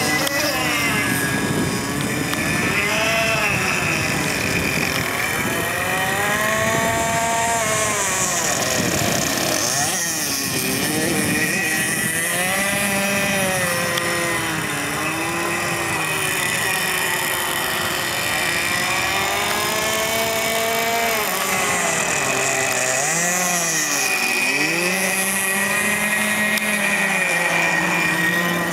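26cc two-stroke petrol engine of a radio-controlled model speedboat running at high revs on the water, its pitch sweeping up and down repeatedly.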